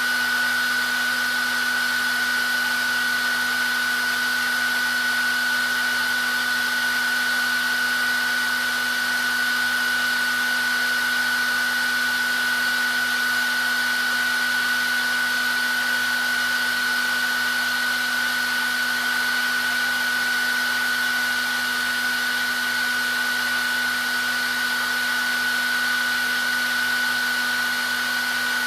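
Electric hair dryer running steadily: an even blowing hiss with a constant motor whine.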